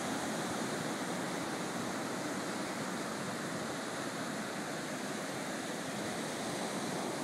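Small surf waves breaking and washing up a sandy beach, a steady rush of sea noise with no single crash standing out.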